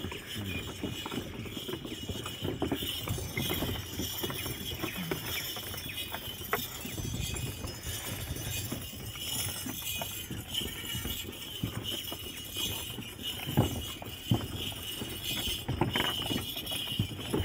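Camel-drawn wooden cart moving along a dirt track: irregular knocking and rattling of the cart with the camel's footfalls.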